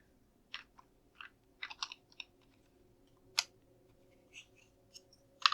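Plastic LEGO bricks clicking and tapping as pieces are handled and pressed into place: a scatter of small, sharp clicks, the sharpest about three and a half seconds in.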